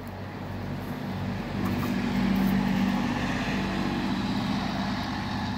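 A motor vehicle's engine hum, growing louder over the first two seconds and then slowly fading.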